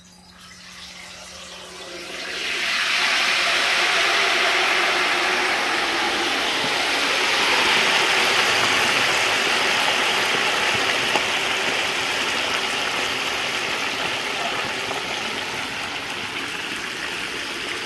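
A whole turkey deep-frying in a pot of hot peanut oil. The oil sizzles and bubbles hard, building up over the first two or three seconds after the drop and easing slowly toward the end.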